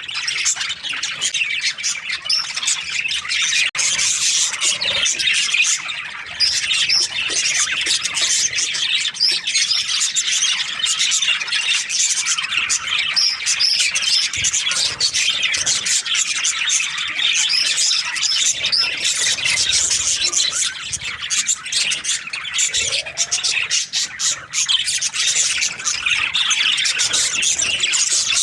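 A flock of budgerigars chirping and chattering, many birds calling over one another in an unbroken stream of short, high chirps and squawks.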